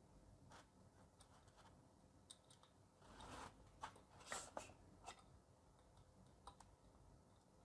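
Near silence with scattered faint clicks and a short scrape, clustered between three and five seconds in: metal probe tips of a 9-volt battery tester tapped against the LEDs on an LED bulb's circuit board.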